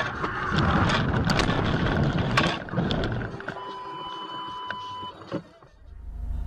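A car leaving the road and ploughing into roadside brush: a rough rumble with a string of sharp knocks and rattles as the car jolts over rough ground. After that comes a steady electronic tone for about a second and a half. Near the end a low engine drone sets in.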